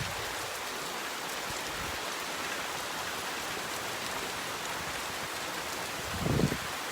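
Steady rain falling, an even hiss of drops on surfaces. A short, louder low thump comes about six seconds in.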